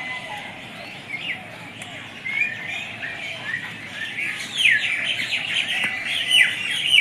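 Many small birds chirping and twittering, sparse at first, then thickening about halfway through into a dense run of quick, high, falling chirps.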